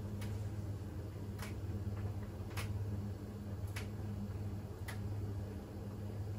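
Siemens iQ700 WG56B2090 front-loading washing machine running with a low steady hum. A light click comes about once a second, evenly spaced, as the drum turns.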